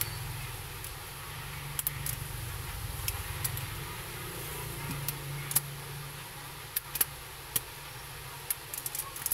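Rubber bands that clamped a freshly glued phone screen being pulled off one by one, a scatter of sharp snaps and clicks against the phone, over a steady low hum.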